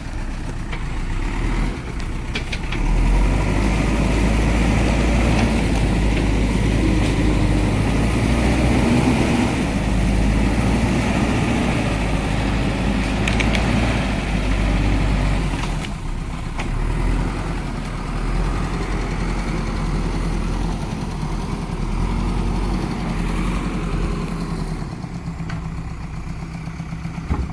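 Backhoe loader's diesel engine running steadily, its note rising about three seconds in and easing off again about halfway through as the machine works.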